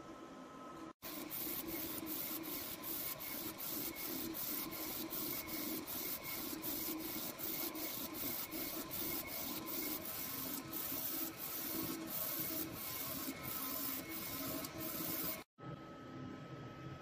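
Desktop UV flatbed printer printing: its print head carriage sweeps back and forth in an even, rhythmic hiss about two to three strokes a second, over the steady whine of its cooling fans. The sound breaks off sharply about a second in and again near the end.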